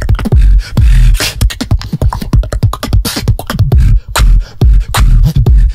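Solo beatboxing into a handheld microphone: a fast, dense pattern of clicks and snare-like hits over heavy bass kicks, with a few held bass tones.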